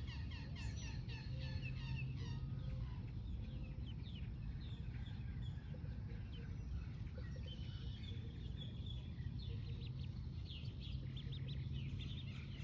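Duckling peeping over and over in short, high chirps, several a second, over a steady low hum.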